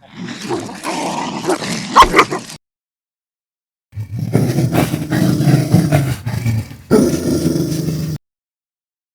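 Dog sounds in two separate clips cut apart by about a second of silence. The first is a noisy stretch with sharp clicks; the second, longer one is a low, rough growl.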